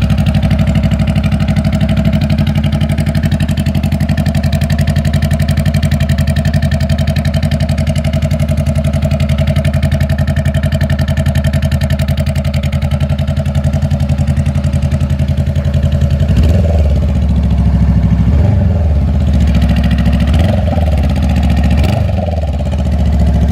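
Honda CBR500R's 471 cc parallel-twin engine idling loud and steady through a bare straight pipe, with no muffler fitted. The pitch wavers a little in the last few seconds.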